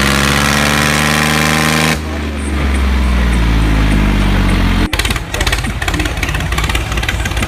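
Tractor engine sound running with a slightly rising pitch, changing abruptly about two seconds in, then cutting suddenly about five seconds in to a choppy, rapidly pulsing idle.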